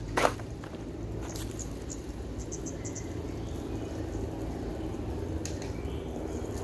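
Outdoor background of a steady low rumble with a few faint, short high chirps. A single crunch of a footstep on dry leaves and debris comes right at the start.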